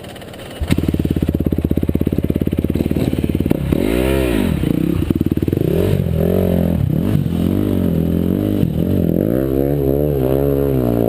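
Dirt bike engine that comes in loud about a second in with a fast, even firing beat, then is revved up and down repeatedly.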